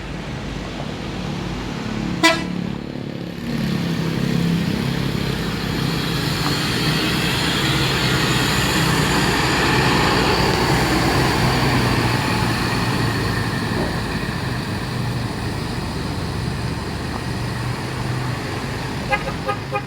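Tour bus sounding its 'friendship' air horn (klakson persahabatan) over the noise of its engine. A brief toot comes about two seconds in, then a long, loud stretch of horn and engine.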